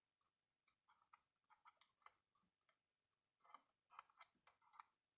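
Near silence with faint, irregular clicks and taps from small parts and meter leads being handled on a workbench, a little more frequent in the second half.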